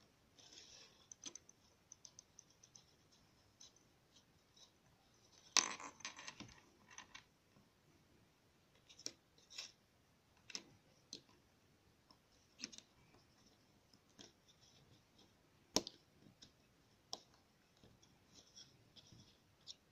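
Faint clicks and scrapes of small plastic Lego minifigure pieces being handled on a wooden desk, as a helmet is fitted onto the figure's head. Scattered sharp clicks, with a louder rattling cluster about six seconds in and a single sharp click about three quarters of the way through.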